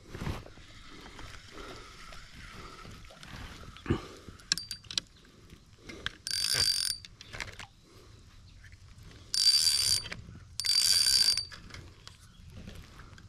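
Fishing reel being cranked in three short bursts, a whirring, ratcheting buzz with a high whine in it, after a few sharp clicks from the reel.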